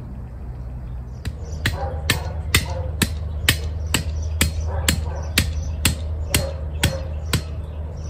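A tall metal garden stake being hammered from the top, sharp blows at about two a second starting about a second in, each with a short metallic ring.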